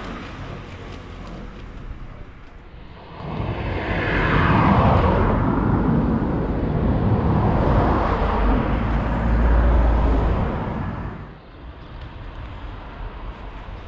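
Road traffic passing close by: a car's tyre and engine noise swells a few seconds in, sweeps past and dies away about three seconds before the end, over lower steady roadside noise.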